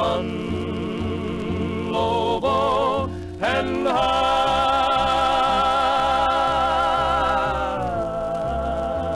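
Closing bars of a 1950s Western harmony song: voices rise into a long held note with vibrato about four seconds in, then step down to a lower note near the end, over a bass line.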